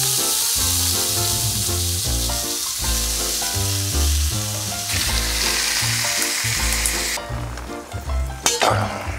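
Thick-cut bacon sizzling loudly as the slices are laid into a hot frying pan, the sizzle cutting off sharply about seven seconds in. Background music plays throughout, and there is a brief metallic clatter near the end.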